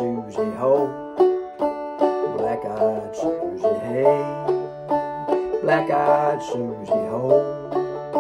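Five-string banjo played clawhammer style in D tuning, a brisk old-time tune of steady plucked notes with a repeating melody, with a voice singing or humming along in places.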